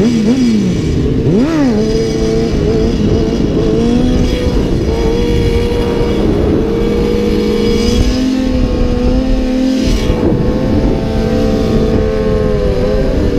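Sport motorcycle engine held at steady revs through a wheelie, the revs dipping and climbing again near the start and near the end, over wind rumble on the microphone.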